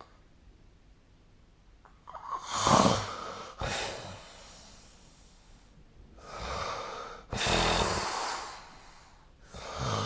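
A sleeping person snoring: after a couple of seconds of quiet, three rough snoring breaths come about every three and a half seconds, each in two parts, the first with a snort.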